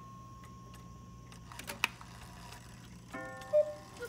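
Antique German Black Forest 8-day cuckoo clock striking twelve. A ringing tone fades away, the mechanism clicks, and near the end the bellows pipes sound the next two-note cuckoo call, high then low.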